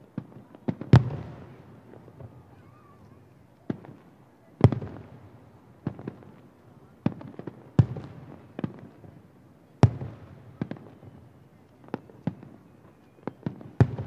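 Aerial fireworks shells bursting about a kilometre away: an irregular string of sharp booms, each trailing off in a rolling echo. The loudest booms fall about a second in, near five seconds and near ten seconds.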